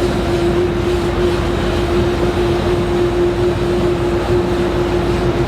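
Boat engines running steadily, a constant hum over a broad rushing noise of wind and water.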